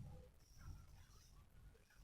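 Near silence with the faint sleep noises of a pet dog: soft breaths and a brief thin whimper-like squeak about half a second in.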